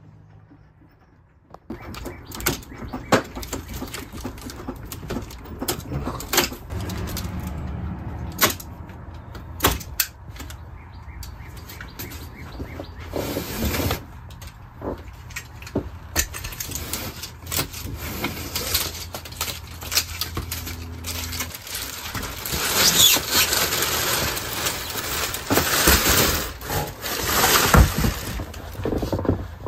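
Unpacking a window air conditioner from its box: irregular knocks and scrapes of styrofoam and cardboard packing, with plastic wrap rustling, busiest and loudest over the last several seconds.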